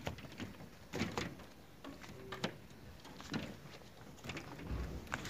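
Scattered light knocks, clicks and scrapes, about one a second, with a brief low thump shortly before a sharp click at the very end.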